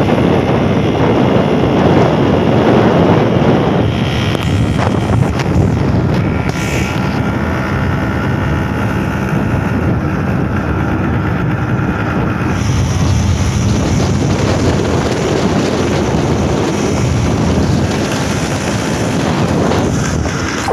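Wind buffeting the microphone of a moving motorcycle, over the steady running of the motorcycle's engine.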